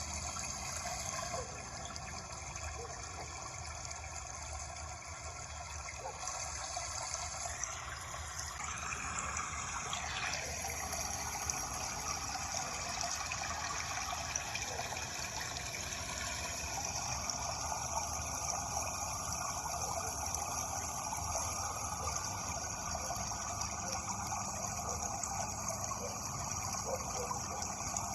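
Running water rushing and trickling steadily, a continuous natural flow such as a stream.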